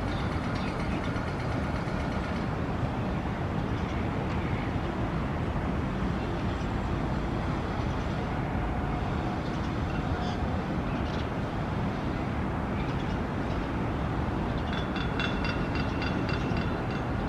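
Steady low rumble of urban outdoor background noise, like vehicles running, with a few brief higher tones near the end.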